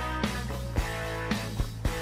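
Rock background music with guitar and a steady drum beat.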